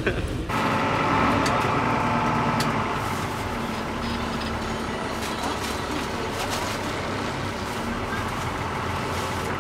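Hino AK front-engined bus running steadily, a low diesel drone with a faint higher hum, starting abruptly about half a second in.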